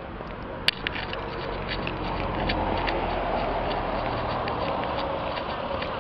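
A car driving past on the road, its tyre and engine noise swelling and then easing over a few seconds, with a sharp click about a second in.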